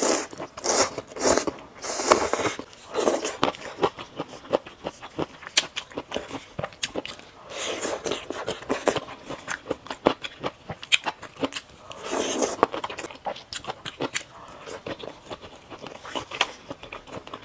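Close-miked eating: noodles slurped near the start, then chewing of skewered broccoli and fried balls, with many small wet mouth clicks and a few longer slurping swells.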